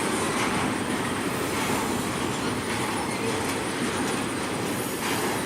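Container cars of a BNSF intermodal freight train rolling past, a steady rumble of steel wheels on rail.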